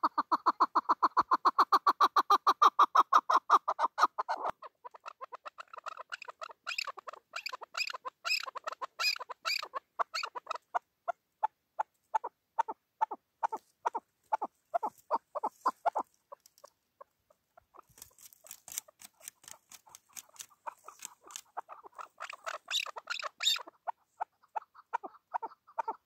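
Caged chukar partridge calling: long runs of rapid clucking chuck notes, about six a second, loudest in the first few seconds, then softer, with a short break past the middle before the calling picks up again.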